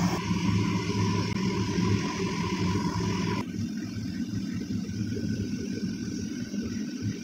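Steady low hum with a hiss over it; the hiss drops away about three and a half seconds in while the hum goes on.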